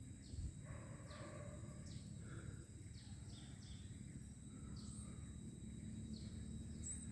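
Faint outdoor ambience with small birds chirping: short high notes that fall in pitch, repeated every second or so.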